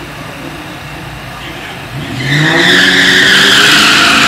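Dodge Challenger SRT8's HEMI V8 revving up about two seconds in, with its rear tyres breaking loose into a loud, sustained squeal, as in a drag-strip burnout.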